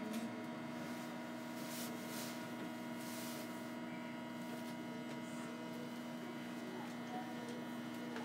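Steady electrical hum of a Tokyo Monorail train standing at a station, several fixed tones held without change.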